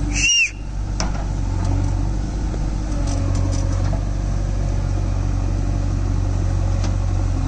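Steady low diesel engine drone of a JCB 3DX backhoe loader working its digging arm, with a brief high squeal about half a second in.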